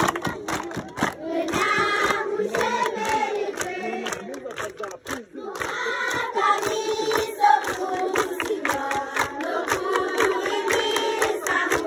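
A large group of young schoolchildren singing a song together, clapping along in a steady beat; the singing briefly drops away about five seconds in.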